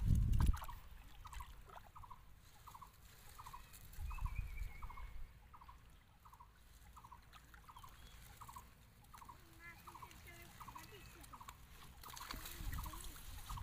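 An animal calling a short note over and over, about one and a half times a second. Under it come low sloshes of water and mud as hands dig into a muddy, weed-choked pond bank, loudest right at the start and again about four seconds in and near the end.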